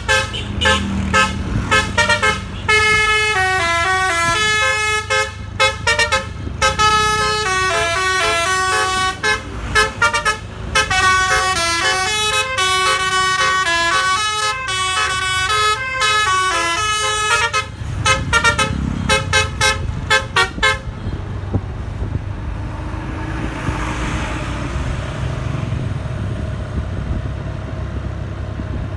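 Telolet basuri horn on a Grand Pegasus bus, played by hand like a pianika keyboard: a fast tune of short stepping notes. It stops about 21 s in, leaving only the low, steady sound of the bus engine.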